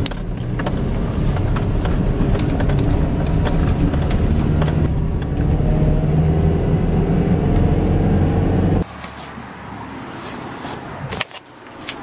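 Pickup truck engine running while driving, heard from inside the cab, with a steady even hum; it cuts off suddenly about nine seconds in. A few sharp clicks follow near the end.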